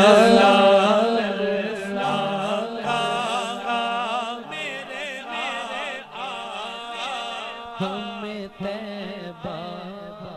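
A man singing a naat (Urdu devotional song) into a microphone, drawing out long, wavering melismatic notes, growing gradually softer, with a steady low hum underneath.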